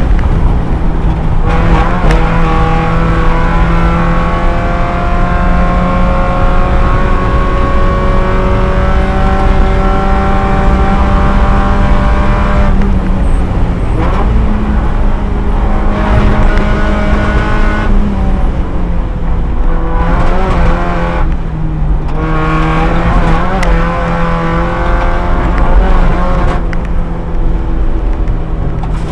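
Spec Miata race car's four-cylinder engine running hard at racing speed. It pulls for about ten seconds with its pitch climbing slowly, then drops off and picks up again several times as the driver lifts and gets back on the throttle.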